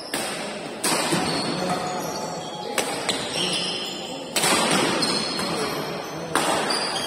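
Badminton rackets striking a shuttlecock during a rally: five sharp hits one to two seconds apart, each echoing in a large hall. One of them is a jump smash.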